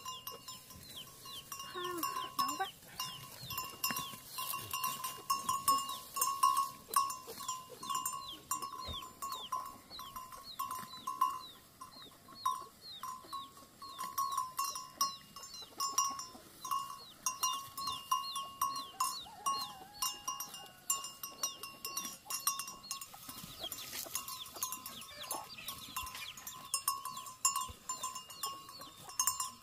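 A bell on a grazing cow's neck ringing on and off, unevenly, as the cow feeds, over a fast run of repeated high chirping.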